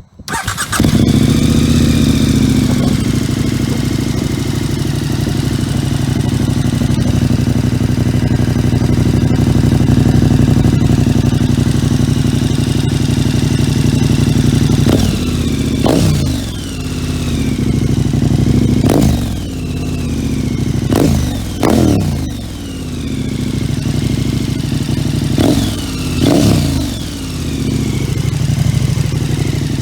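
KTM 1290 Super Adventure's V-twin, through a Leo Vince One Evo exhaust with its baffle removed, starting about half a second in and settling into a steady idle. In the second half it is blipped several times: short, sharp revs that fall straight back to idle.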